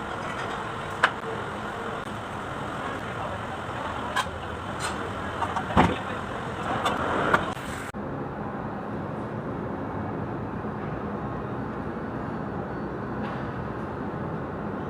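Kubota D905 three-cylinder diesel engine running steadily, with a few sharp clacks and a brief rattle about halfway through.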